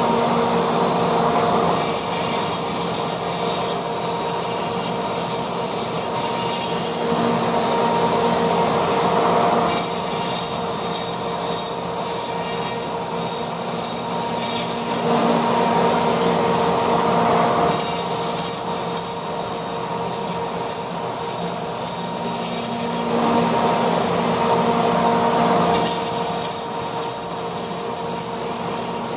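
Laguna Smartshop 2 CNC router's spindle running and cutting foam, a steady whine over the noise of the cut, with the sound shifting every few seconds as the cut changes.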